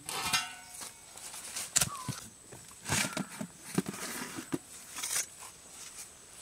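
Scattered light metal knocks and scrapes, several spaced over a few seconds, as the charcoal-heaped lid is lifted off a large metal biryani pot at the end of dum cooking.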